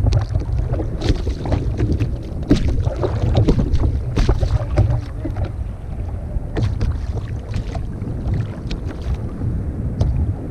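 Wind buffeting the microphone as a steady low rumble, out on the water in a kayak, with irregular small knocks and ticks scattered through it, most of them in the first half.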